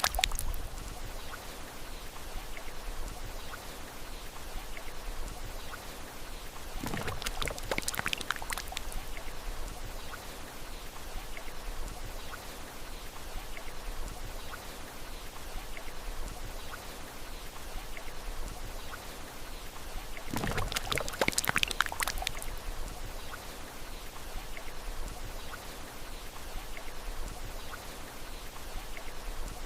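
Thick liquid pouring and flowing, with small drips and plops throughout and two louder gurgling surges, about seven and twenty seconds in.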